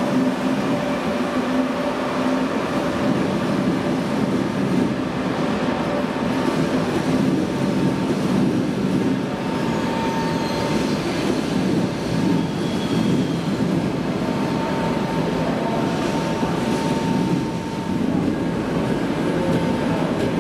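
Trenitalia Intercity Notte train running along the rails: a steady rumble of wheels and carriage. A faint thin whine comes and goes about halfway through and again later.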